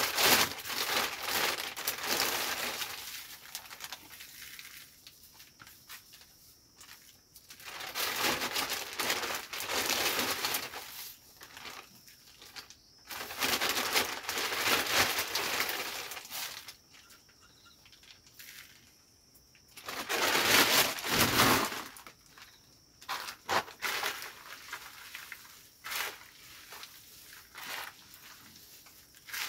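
Plastic bag and plastic sheeting crinkling and rustling in bursts of a few seconds with quieter pauses between, as powder is shaken out of the bag over a heap of cut greens. Near the end, lighter scattered crackles as the greens are turned over by hand.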